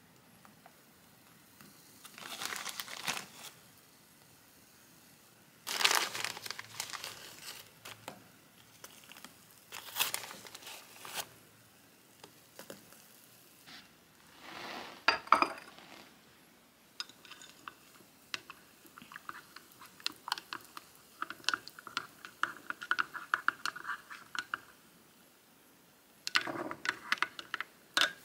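Plastic packaging crinkling and tearing in several short bursts, with small taps and clicks of a spoon and mug, while a mug of hot chocolate is made.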